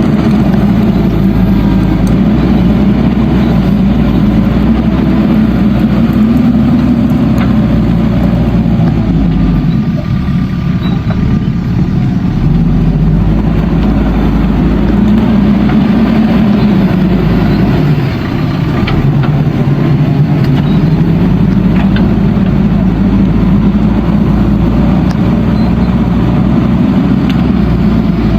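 JCB backhoe loader's diesel engine running under load, its pitch swelling and sagging as it revs up and down, easing off briefly about ten seconds in and again near eighteen seconds.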